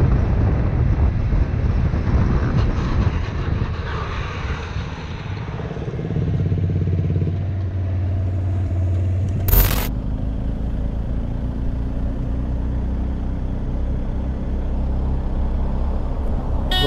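Motorcycle ridden on the road with wind rushing over the helmet camera's microphone, then the engine idling steadily once the bike has stopped. A sharp click comes about ten seconds in, followed by another motorcycle engine running at a steady cruise.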